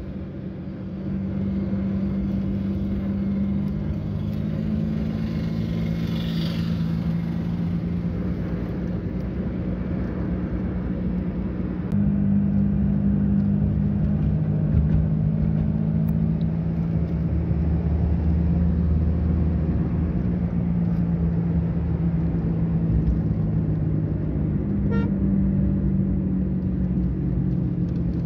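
Engine and road noise heard inside a moving car's cabin: a steady low hum whose pitch shifts a couple of times, getting louder about twelve seconds in.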